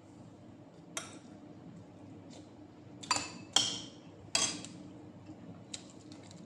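Glass and ceramic dishes clinking as they are handled, about five sharp knocks with a brief ring, the loudest two about three and a half and four and a half seconds in.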